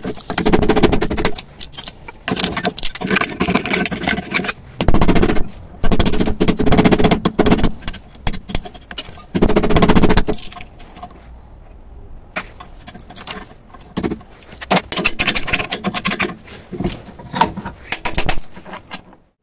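Flat screwdriver scraping and chipping burnt potting compound and components out of a motorcycle regulator's metal case, in loud bursts of rapid scraping and metallic clicks, lighter and more scattered in the second half.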